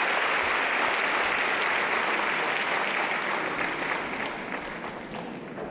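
Audience applauding, the clapping dying down over the last couple of seconds.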